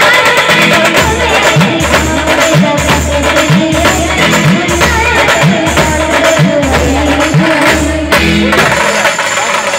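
Loud band music with a deep drum beat about once a second under a melody line and jingling tambourine-like percussion. The beat drops out about eight and a half seconds in.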